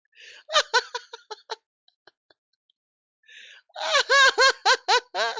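A person laughing in two bouts: a short run of giggles near the start, then a louder, longer run of laughs from about three and a half seconds in.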